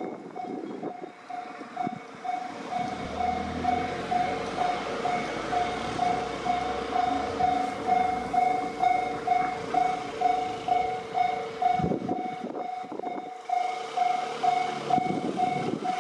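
Railway level crossing warning alarm ringing in a steady, repeating ding. A train rumbles through the crossing during the middle of the alarm.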